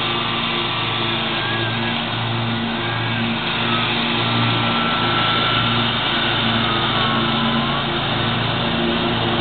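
Engine running steadily at constant speed, a low hum that swells and fades in a slow, regular throb.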